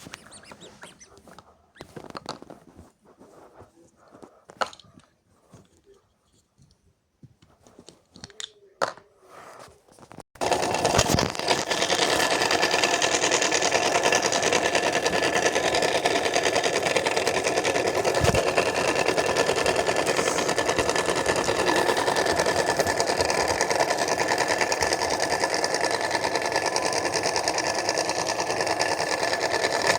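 A small washing machine starts about ten seconds in and runs with a loud, steady, fast mechanical rattle. It is preceded by scattered light clicks and taps.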